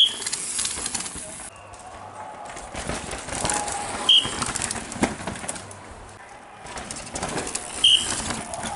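Downhill mountain bikes passing close, one after another about every four seconds, their tyres skidding and scrabbling through loose dirt. A short, sharp high squeak sounds as each rider goes by.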